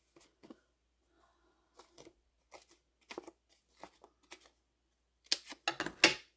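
Small craft scissors snipping a sheet of adhesive foam dimensionals: a run of short, sharp snips about every half second, with a louder cluster of clicks near the end.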